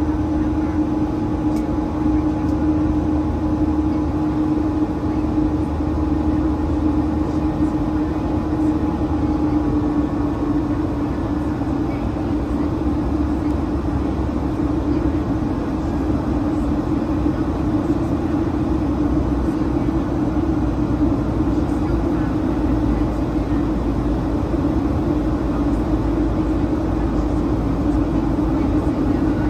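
Jet airliner cabin noise during the climb after takeoff: the steady drone of the engines and rushing air, with a low hum that turns rougher about ten seconds in.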